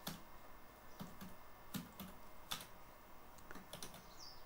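Faint keystrokes on a computer keyboard, a handful of single clicks at irregular spacing, roughly one a second, as text is typed.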